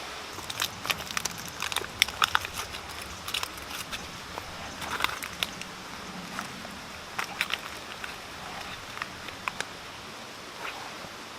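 Small wood fire crackling with irregular sharp snaps, over the steady rush of a mountain stream.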